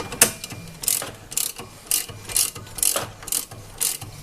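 Hand ratchet wrench being swung back and forth to tighten a fastener, giving a short burst of pawl clicks on each stroke, about two a second.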